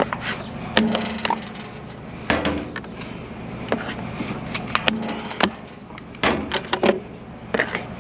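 Fan blades being popped and snapped off a scrapped fan: a string of sharp cracks and knocks at an irregular pace, sometimes several in quick succession.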